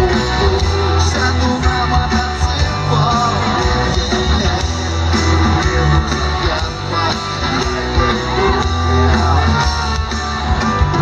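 Loud rock music with guitar, strong bass and a singing voice.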